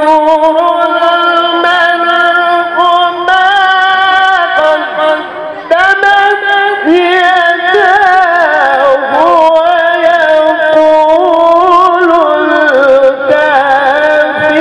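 A male qari reciting the Quran in the melodic tilawah style: long, high held notes with wavering ornaments. There is a short break for breath about five and a half seconds in, then the line steps down in pitch.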